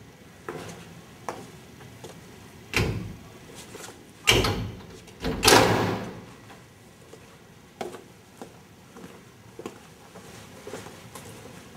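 Irregular knocks and clatters, about a dozen, the loudest about three, four and a half and five and a half seconds in.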